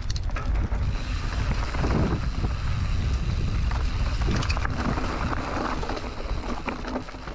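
Wind buffeting the microphone of a Canyon Neuron mountain bike on a dirt-trail descent, with the tyres crunching over loose stones and short clicks and rattles from the bike.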